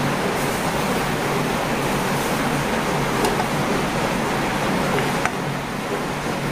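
Steady hiss of heavy rain, with a couple of faint light clicks partway through.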